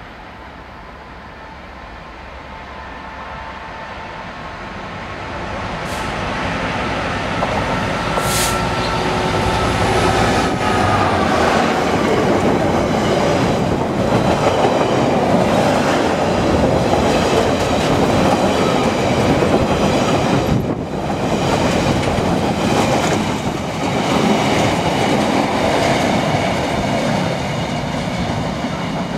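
Class 66 diesel freight locomotive, its EMD two-stroke V12 growing louder as it approaches, its engine note dropping in pitch as it passes about ten seconds in. A long rake of container wagons then rumbles past with the wheels clicking over the rail joints, the sound easing a little near the end as the train recedes.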